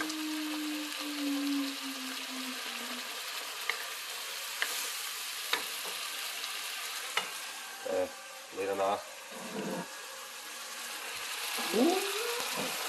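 Curry sauce sizzling and frying in a nonstick wok while a wooden spatula stirs it, with a few light clicks of the spatula against the pan.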